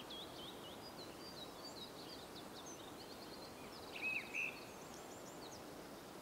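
Small songbirds singing faintly: a string of quick high chirps and short trills, with one louder call about four seconds in, over a soft steady outdoor hiss.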